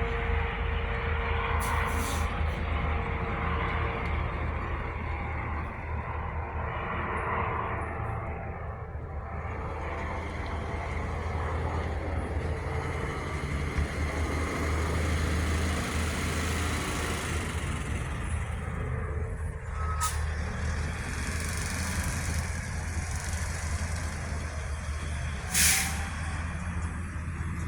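Heavy vehicle engine idling with a steady low rumble, a few short clicks, and one short loud hiss near the end.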